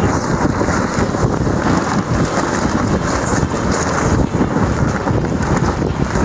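Strong wind buffeting the microphone, with the half-hoisted headsail flapping and rustling in the gusts.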